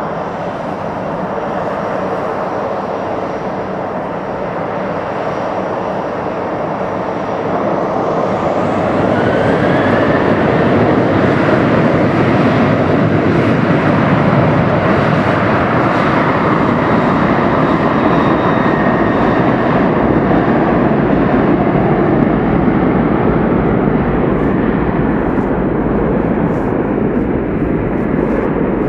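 Boeing 737-800's CFM56 jet engines running loud, growing louder about eight seconds in and staying loud, with a faint rising whine as the sound swells.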